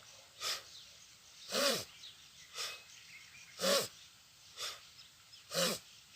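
Slow-pace bhastrika pranayama: deep, forceful breaths in and out through the nose, alternating softer and louder about a second apart, three of each.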